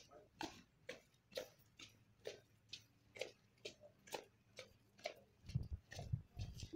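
Marching boots of a squad of cadets striking wet paving in step, faint, about two footfalls a second. Heavier low thuds join in near the end.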